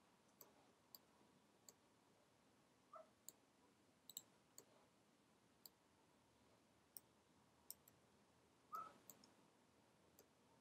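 Near silence with about a dozen faint computer mouse clicks at irregular intervals, and a slightly louder short soft sound near the end.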